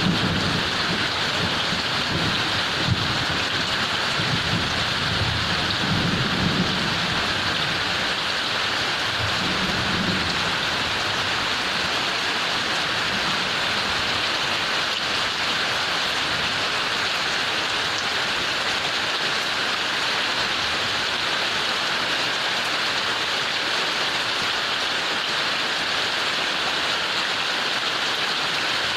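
Heavy rain falling steadily, with low rumbles of thunder through the first ten seconds or so that then die away.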